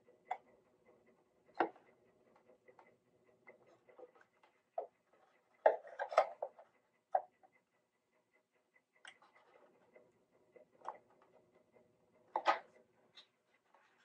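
Scattered light clicks and knocks of hand tools, cleats and a small clamp being handled against the wooden top of an open archtop guitar body. They peak in a short clatter about six seconds in and a sharp knock near the end.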